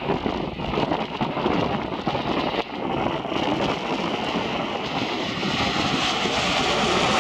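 Jet engine noise from Kawasaki T-4 jet aircraft growing louder over the last couple of seconds, mixed with strong wind buffeting the microphone.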